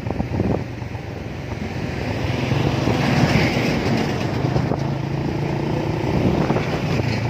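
Vehicle engine running on the move, with road and wind noise heard from on board; the engine's pitch shifts a little as it goes.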